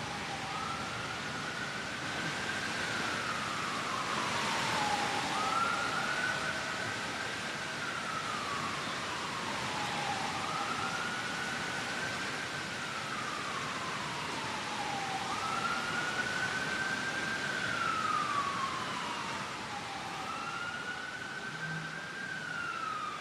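Emergency-vehicle siren wailing, its pitch rising and then falling in slow cycles about five seconds apart, over a steady background hiss.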